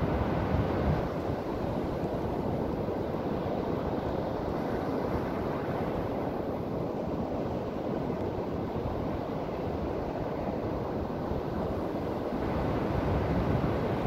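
Ocean surf breaking and washing up a sandy beach: a steady rush of waves, swelling a little louder near the start and again near the end.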